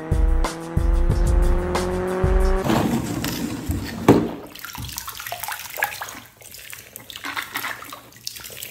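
Music with a steady beat over a car engine tone that slowly rises in pitch, cutting off about two and a half seconds in. Then water splashing and plastic clattering as toy cars and plastic balls are moved about in a shallow inflatable pool, with a sharp knock about four seconds in.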